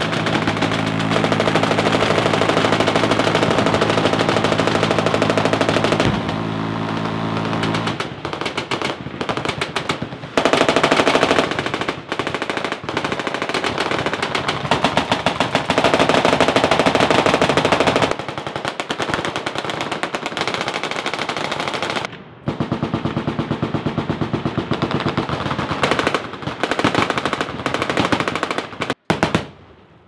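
Full-auto machine-gun fire, several guns going in long overlapping bursts. For roughly the first eight seconds the fire is so rapid it runs together into a steady buzz. Later it breaks into separate bursts with short pauses, dropping off just before the end.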